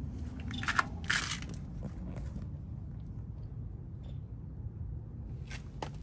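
Handling and movement noise: a couple of short crunching rustles about a second in and two light clicks near the end, over a steady low rumble.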